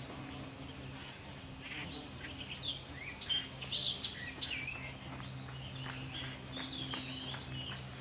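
Small songbirds chirping and twittering in short, quick notes, busiest and loudest about halfway through, over a steady low hum.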